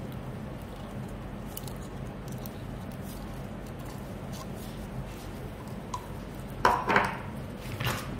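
Soft pale-green slime squeezed and stretched by hand: quiet sticky squishing with small clicks, then a burst of crackling pops a little before seven seconds in and another shortly before the end. A faint steady low hum runs underneath.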